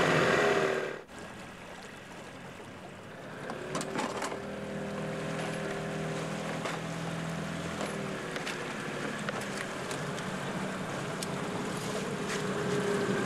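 Small boat's outboard motor running steadily over water and wind noise, with a few knocks about four seconds in. A louder sound cuts off suddenly about a second in, and the motor's hum comes in a couple of seconds later.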